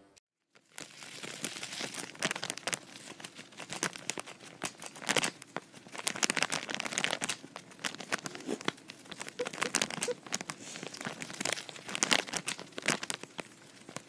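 Clear plastic wrapping crinkling and rustling in irregular bursts as a dwarf hamster clambers over a bagged bundle of thin wooden sticks, with small clicks and scrapes; it starts about a second in.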